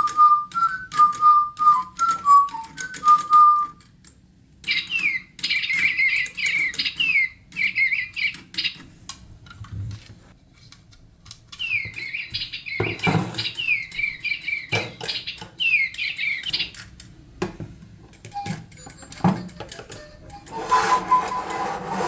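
DigiBirds electronic toy birds whistling a short stepwise tune, then several runs of fast, high, falling chirps and tweets from the toy's speaker. Sharp plastic clicks and knocks come in between from the toy bird house being handled.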